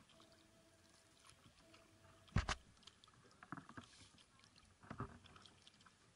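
Kayak paddle strokes in calm water: soft splashes and drips every second or so, the loudest a little over two seconds in.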